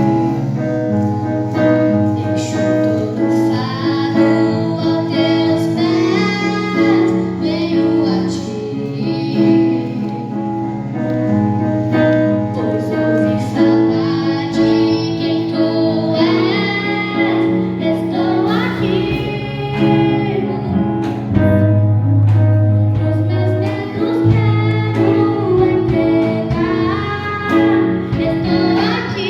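A children's choir singing a gospel song over instrumental backing.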